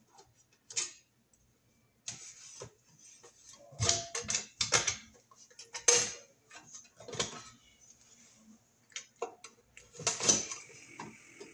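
Screwdriver working the cover screws of a Federal Pacific breaker panel and the panel's metal cover being handled: an irregular run of small clicks, scrapes and knocks.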